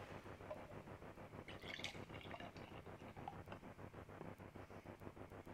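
Beer poured from a glass bottle into a drinking glass: faint splashing and trickling of liquid filling the glass.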